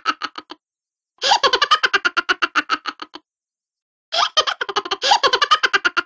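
Looped giggling-laughter sound effect: the same rapid, pulsing burst of about two seconds plays twice, each one cutting off to dead silence.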